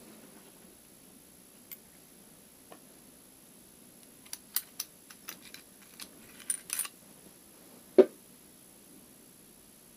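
Small brass burner parts clicking and clinking as the drilled brass diffuser and nozzle cap are handled and fitted onto the copper-tube burner: a scatter of light clicks, then one louder knock about eight seconds in.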